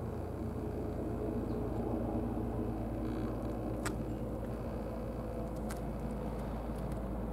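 Steady low background rumble, with two short sharp clicks about four and six seconds in.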